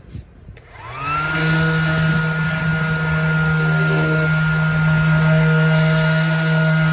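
Bauer 20 V cordless 5-inch random orbital sander starting up under a second in, its whine rising briefly and then settling into a steady, loud hum as it sands wood with 80-grit paper.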